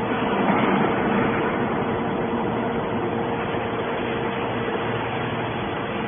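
Hydraulic scrap metal baler's power unit running: a steady mechanical hum with a constant mid-pitched whine under a wash of factory noise.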